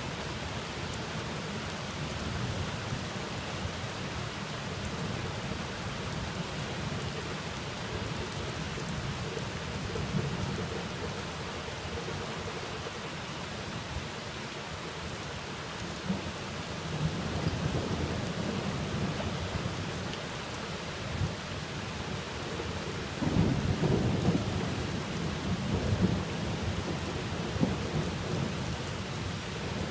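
Steady rain hissing down, with thunder rumbling underneath; the thunder swells about two-thirds of the way through and is loudest near the end.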